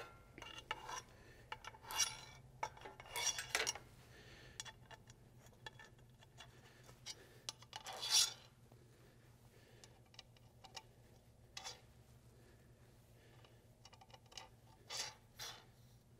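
T-nuts being slid by hand into the slot of an aluminum extrusion rail: scattered metallic scraping and clinks, the loudest about eight seconds in, over a low steady hum.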